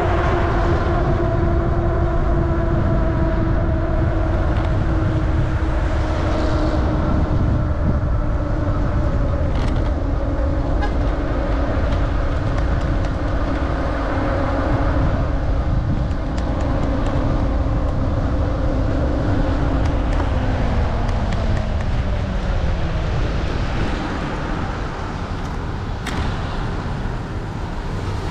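Wind and road noise on a bicycle ride in the rain, a heavy, unsteady rumble, with a steady hum that slowly drops in pitch over about twenty seconds before fading.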